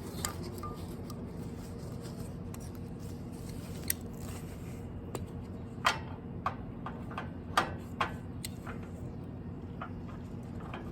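A ratchet strap being handled and threaded: the webbing rubs and scrapes through the metal ratchet, with scattered sharp clicks and knocks from the buckle, over a steady low hum.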